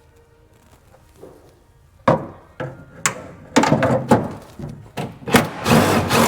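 Irregular knocks and clanks of hand tools working on metal while an antenna mount is removed from a Humvee body. They start about two seconds in and come thicker and louder toward the end.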